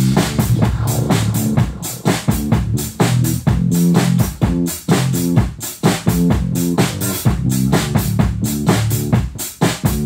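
Drum kit played at a steady, busy rock beat, kick drum, snare and cymbals struck several times a second, over a recorded song track with sustained bass and melody notes.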